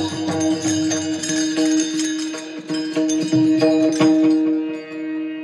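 Instrumental devotional kirtan music: a harmonium holds one steady note while drum and hand-cymbal strikes fall over it, growing softer near the end.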